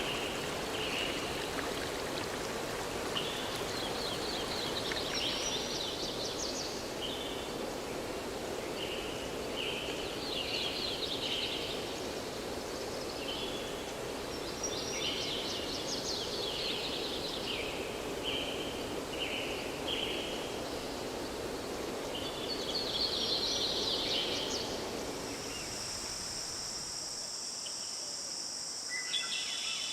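Forest ambience: a steady rush of flowing water with birds singing short, repeated phrases over it. About 26 seconds in, the water sound drops away and a steady, high insect trill, like crickets, takes over.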